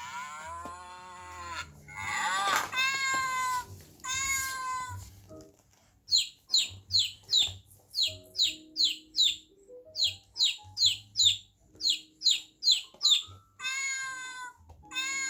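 Recorded animal sounds playing: a cat meowing a few times, then a run of quick, high, falling chirps at about two a second over a few plain musical notes, then the cat meowing again near the end.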